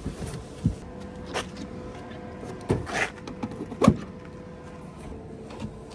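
The car door of a Tesla Model Y opening, then a series of clicks and knocks as a Tesla Supercharger connector is handled and pushed into the car's charge port, with the loudest knock about four seconds in. A faint steady hum runs underneath.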